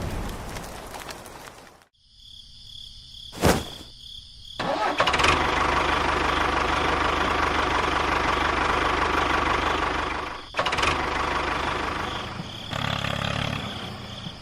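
Rain-like hiss that cuts off, a sharp click, then an engine starting and running steadily, with a brief dip and click about ten seconds in.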